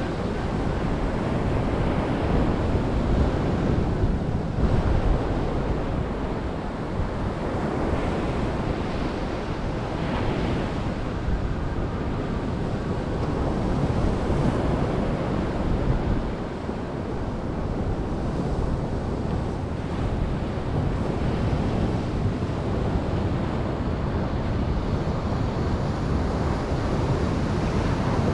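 Ocean waves washing onto a beach in a continuous surf, swelling and easing gently, with a low rumble of wind on the microphone.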